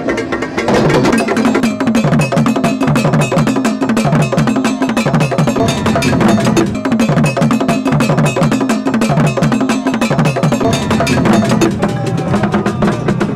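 Traditional Ghanaian drumming: a struck iron bell rings out a fast, steady repeating pattern over a dense, loud drum rhythm.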